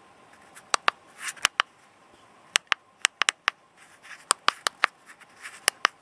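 Buttons on a handheld battery tester being pressed to step through its menus: sharp plastic clicks in quick pairs, about eight presses, with faint rustles of the unit being handled.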